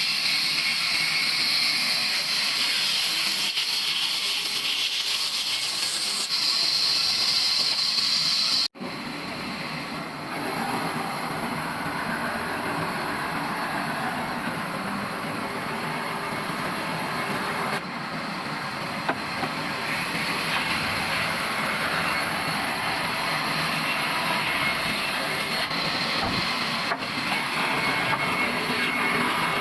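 Sawmill machinery running with a steady, loud hissing noise. It breaks off abruptly about nine seconds in, then a fuller, broader machine noise carries on steadily.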